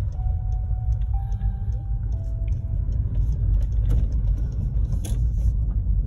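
A car driving on a gravel dirt road: a steady low rumble of tyres and engine, with scattered short clicks.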